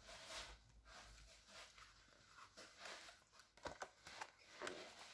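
Near silence with faint paper handling: soft rustles and a few short clicks as the pages of a children's picture book are turned.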